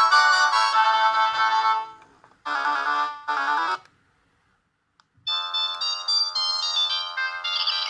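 Panasonic G60 mobile phone playing its built-in ringtones through its speaker. One electronic melody fades out about two seconds in and is followed by two short tone phrases. After a brief pause with a single click, a new melody starts about five seconds in.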